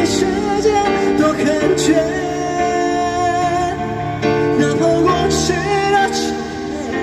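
Street buskers performing a song through a small amplifier: male singing over electric keyboard accompaniment, with held chords under a wavering melody.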